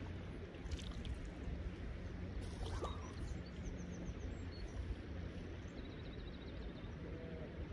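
Steady outdoor noise of a flowing river with low, gusty rumble from wind, and a few faint bird calls: a couple of short chirps near the middle and a quick run of high notes about six seconds in.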